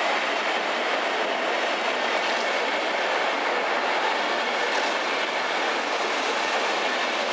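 Intercity train hauled by a DB Class 101 electric locomotive rolling into the station: a steady rush of wheels on the rails, with a few faint clicks over rail joints.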